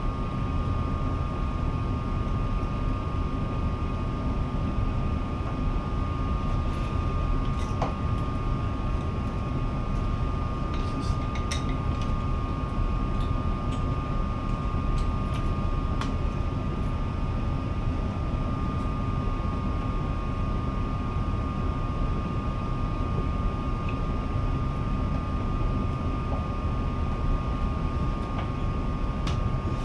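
Steady mechanical whirring rumble with a constant high hum, and a few light clicks and taps scattered through the middle.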